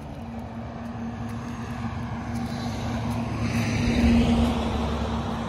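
A motor vehicle passing by, its engine noise swelling to its loudest about four seconds in and then easing off, over a steady low hum.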